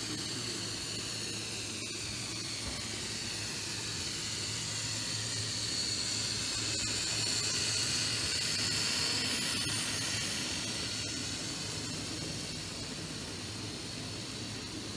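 A Z gauge model electric locomotive hauling hopper wagons: the high, steady whine of its small motor and the hiss of wheels on the track, growing louder toward the middle as it passes close by. A steady low hum lies underneath, with a few faint clicks.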